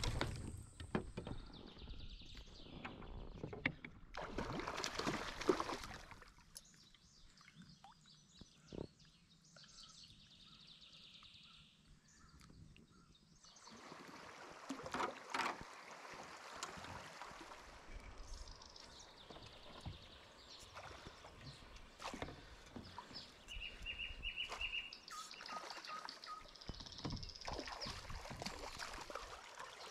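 A hooked brown trout thrashing and splashing at the surface beside a kayak, loudest in bursts during the first few seconds, with birds calling at times.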